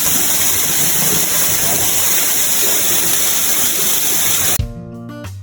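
Rushing white water of a small cascade, a loud steady rush echoing off a rock cave. About four and a half seconds in it cuts off suddenly and acoustic guitar music begins.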